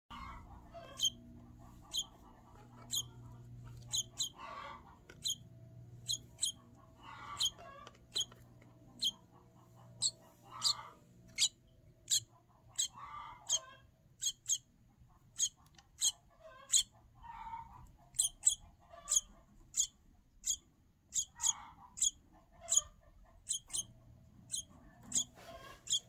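Baby bird in its nest peeping: short, high, sharp chirps repeated about once a second, quickening to about two a second in the second half. These are a nestling's begging calls for food.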